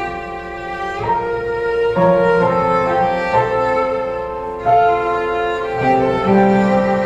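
Background music: slow bowed-string melody, violin over cello, with new notes about once a second.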